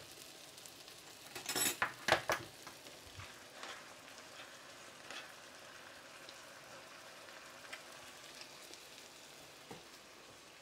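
Ground beef and pepper stir-fry sizzling faintly in a pan as it is stirred, with a cluster of loud utensil knocks against the pan about one and a half to two and a half seconds in and a few lighter taps after.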